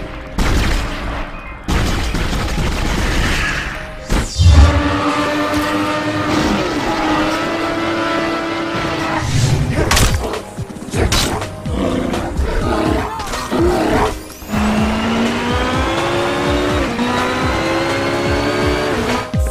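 Intro music with heavy booming hits and gliding, engine-like swells, building to a long rising tone near the end.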